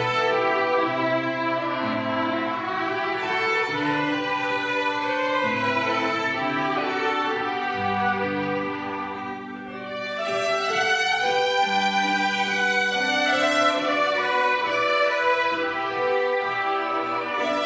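A string ensemble playing a piece, with held bowed notes over a moving lower line; it eases off a little past the middle, then grows louder again.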